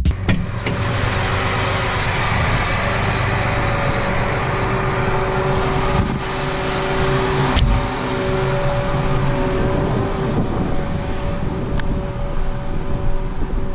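Farm machinery engine running steadily with a constant hum, with a couple of short knocks about six and seven and a half seconds in.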